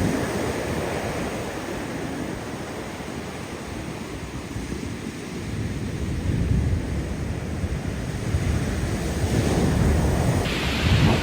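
Atlantic Ocean surf washing onto the beach in swells that rise and fall every couple of seconds, with wind rumbling on the microphone.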